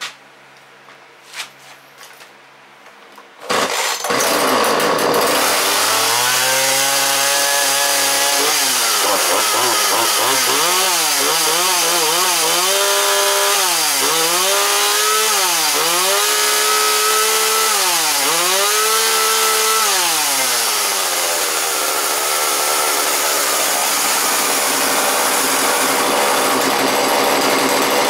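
Husqvarna 137/141 two-stroke chainsaw pull-started, catching about three and a half seconds in after a few faint handling clicks. It is revved up and down about five times, each rev rising and falling in pitch, then settles into a steady fast running speed, not dropping back to a slow idle.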